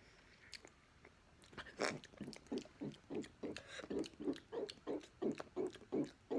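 A person's mouth and throat making a quick, even run of short throaty gulping sounds, about three a second, starting a little way in.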